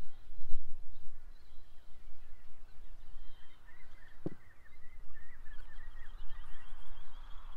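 Small birds chirping and twittering in the background over a low steady rumble, with one short dull knock a little past four seconds in.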